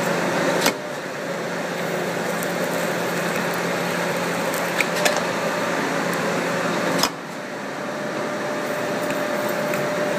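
Butler metal planer running as it machines dovetails in steel, its moving table and drive giving a steady mechanical noise with a faint hum. A sharp clack comes twice, about six seconds apart; each time the noise drops and then builds up again.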